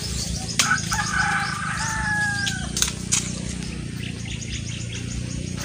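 A rooster crows once, starting about half a second in and ending in a long held note a little over two and a half seconds in. A few sharp clicks and a steady low rumble run underneath.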